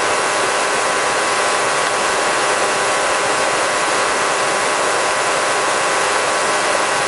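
Robinson R44 helicopter in cruise flight heard from inside the cabin: a steady drone of engine and rotor noise with a faint whine of several steady pitches.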